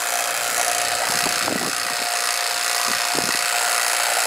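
Refrigeration vacuum pump running steadily, evacuating the refrigerant lines and coil of a newly installed air-conditioning system. A couple of soft bumps about one and a half and three seconds in.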